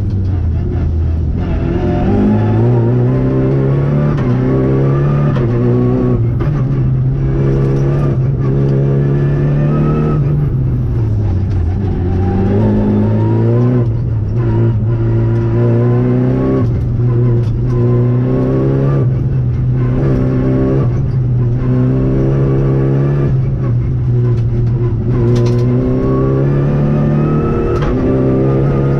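Renault Clio Rally5's turbocharged four-cylinder engine heard from inside the cabin, driven hard on a rally stage: it revs up again and again, each rise lasting a second or two and dropping back at a gear change or lift, over road and tyre noise.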